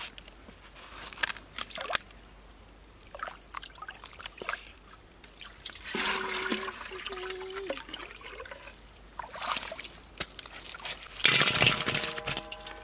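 A pot is dipped into a pond and filled, with sloshing and gurgling water. Near the end water is poured from it into a metal wok of raw shrimp, the loudest sound.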